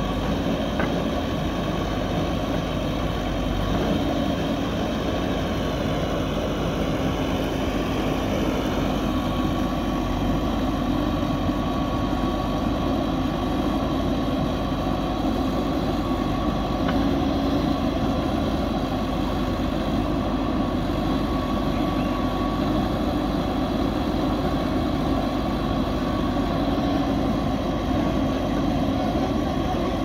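JCB backhoe loader's diesel engine running steadily while the backhoe arm digs and swings soil into a tipper truck: an even drone with a faint high whine.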